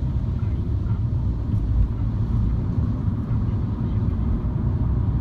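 MINI car driving, a steady low road and engine rumble.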